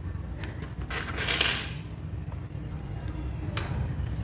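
A few light plastic clicks from XDA-profile keycaps being handled and pressed onto a mechanical keyboard's switches, with a short rustle about a second in.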